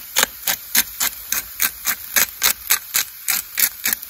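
Handheld pepper grinder being twisted to crack peppercorns: a steady run of crisp grinding clicks, about four a second.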